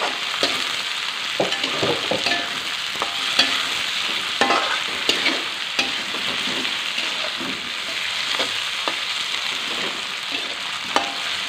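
Sliced chilies, shallots and tomato sizzling in hot oil in a wok while being stir-fried with a metal spatula, which scrapes and knocks against the pan in frequent irregular strikes, some with a short metallic ring.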